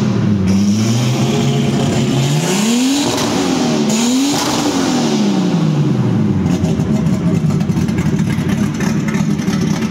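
BMW E30 race car's engine revved twice, its pitch climbing and falling, then dropping back to a steady, rough idle for the last few seconds.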